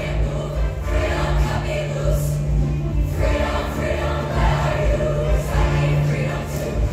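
Show choir singing in harmony with a live band, steady bass line and drum beat underneath.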